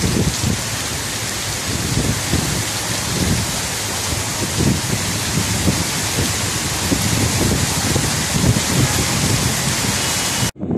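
Heavy rain pouring down in a steady, loud hiss, with irregular low rumbling underneath. The sound cuts out suddenly near the end.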